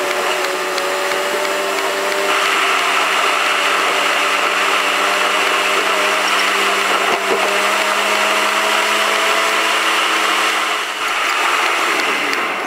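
Steady whirring drone inside a moving car, with a few held tones that drift slightly in pitch and an even hiss that grows louder about two seconds in and eases near the end.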